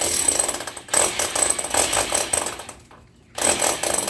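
Hammer drill boring into a wall, running in three bursts with short pauses between them.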